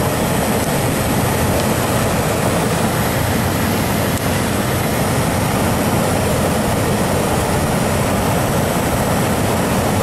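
HVAC air handler running with its blower on: a loud, steady rush of air and fan noise.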